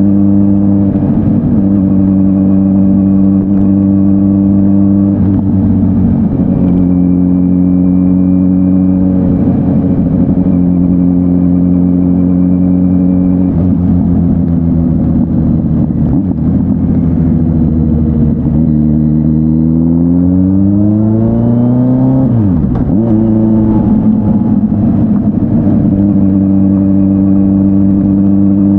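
Kawasaki Z900's inline-four engine through an SC-Project S1 exhaust, running at a steady cruise. About two-thirds of the way in the note climbs as the bike accelerates, dips sharply for a moment, then settles back to a steady cruise.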